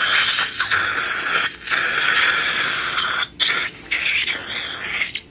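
Dental water spray and suction hissing as the patient's mouth is rinsed during a tooth extraction, broken by a few brief gaps.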